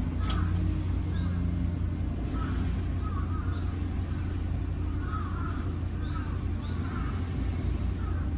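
Steady low rumble of construction-site machinery, with birds calling again and again over it in short calls.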